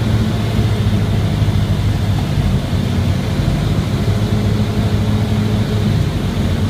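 Cessna 172R's four-cylinder Lycoming engine and propeller heard from inside the cabin: a steady low drone.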